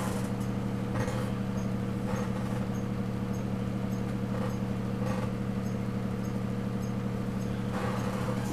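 Steady low hum of room background noise, with a few faint soft rustles and knocks as a double-barrel shotgun is handled.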